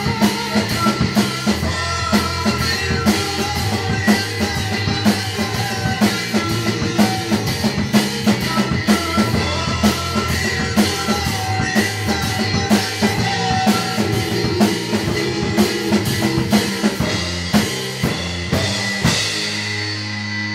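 Drum kit played along with a recorded rock song: a steady beat of kick drum, snare and cymbals over the backing track. Near the end the drumming stops and a cymbal is left ringing as the song carries on.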